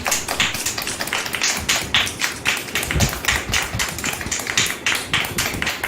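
A group of children clapping, a quick run of sharp claps with a few duller thuds among them.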